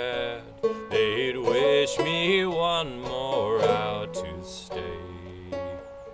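Open-back five-string banjo played clawhammer style in double-C tuning with the fifth string dropped to e, picking out a slow melody. The playing dips briefly about half a second in and again near the end.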